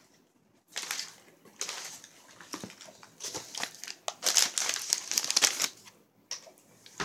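Crinkly snack bag of corn chips being handled and opened, rustling in uneven spurts that are loudest a little past the middle.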